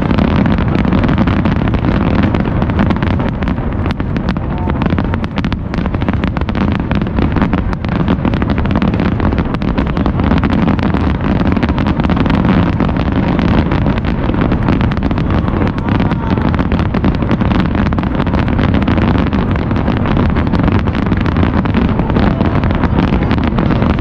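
Aerial fireworks barrage: many shells bursting in quick succession, heard as a steady low rumble dense with sharp cracks and bangs.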